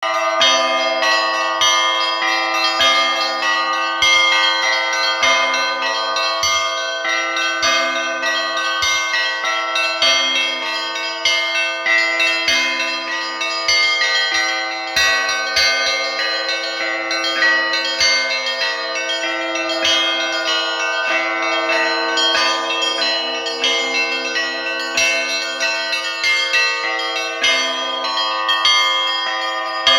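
Orthodox church bells rung by hand by a single bell-ringer: many higher bells chime continuously, with deeper bells striking beneath in a repeating rhythm about every two and a half seconds.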